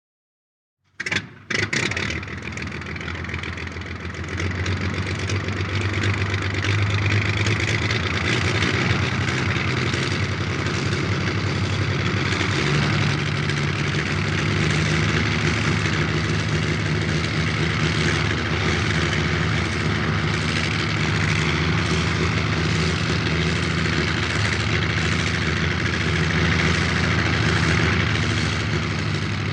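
Fokker D.VII biplane's engine starting about a second in with a few sharp bangs. It catches and picks up over the next few seconds, then settles into a steady idle.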